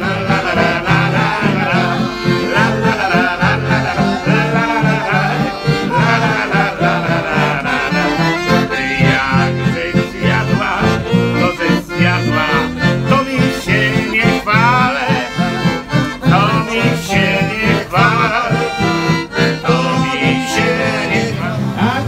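Warsaw street-band music: an accordion and an acoustic guitar playing a folk song over a steady, even bass rhythm, with voices singing along.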